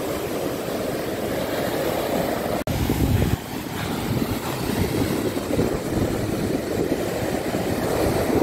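Surf breaking on the beach, a steady low rush, with wind blowing on the microphone. The sound cuts out for an instant a little under three seconds in, followed by a brief, louder rumble of wind on the microphone.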